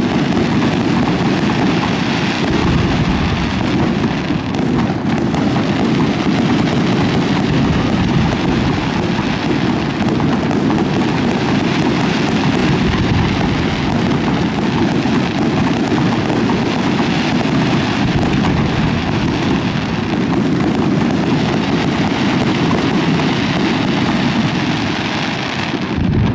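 Aerial fireworks display by Lieto Fireworks: a dense, unbroken barrage of shell bursts and crackle, many reports running into one another at a steady loudness.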